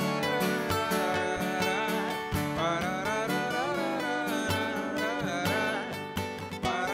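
Two acoustic guitars playing the intro of a calm acoustic song, with a singer's wordless vocal line over them.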